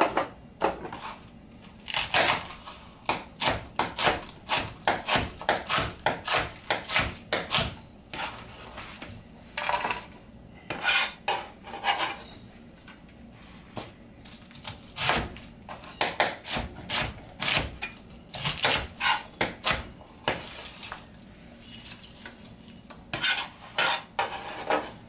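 Chef's knife chopping cabbage into squares on a plastic cutting board: quick runs of crisp chops through the leaves onto the board, several a second, broken by a few short pauses.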